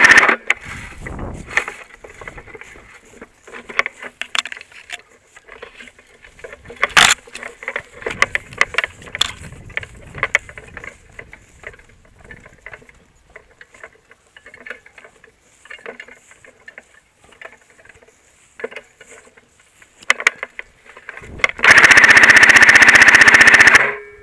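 Airsoft MG42 firing one long, loud burst of about three seconds near the end, a fast even buzz of shots. Before it come scattered faint clicks and rustles of handling and movement.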